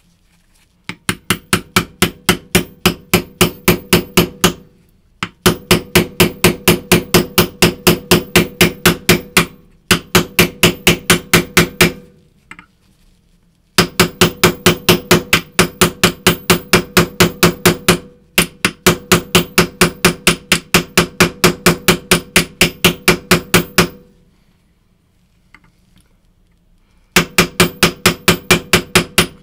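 A small hammer tapping a steel pin punch in rapid, even strokes, about five a second, in several runs separated by short pauses. The punch is driving the roll pins into an AR-10-pattern adjustable gas block on a rifle barrel.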